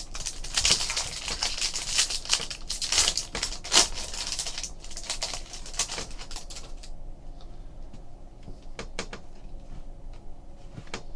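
Trading card packs being handled: a dense, rapid crackling for about seven seconds, then scattered light clicks as cards are flicked through.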